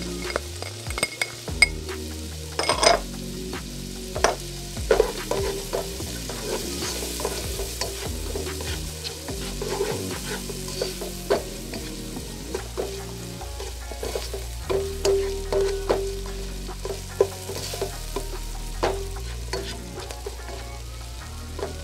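Chopped onion and garlic sizzling in melted butter in a nonstick pot, stirred with a spatula that scrapes and taps against the pot many times.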